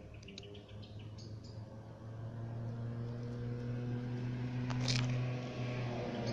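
A steady low machine hum, like a distant engine, growing slightly louder. A few faint high chirps come in the first second and a half, and a brief scratchy sound about five seconds in.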